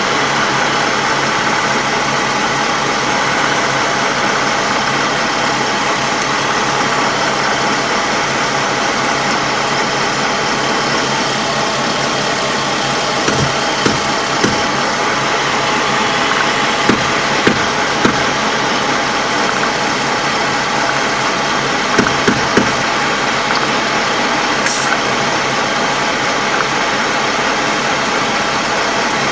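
Steady drone of a LAV III armoured vehicle's diesel engine running, heard from inside the hull. Several sharp knocks come in small groups around the middle.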